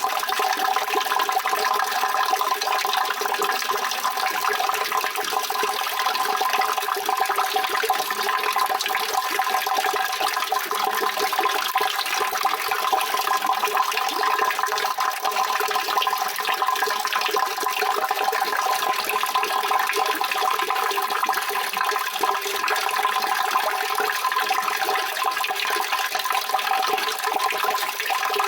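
Steady rushing water, an even, unbroken sound with no changes.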